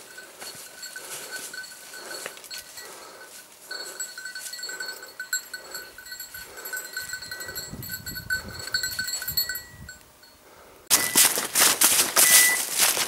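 A hunting dog's bell jingling steadily as the dog works through the brush. About eleven seconds in it gives way to much louder crunching footsteps in dry leaf litter, with a short high beep repeating.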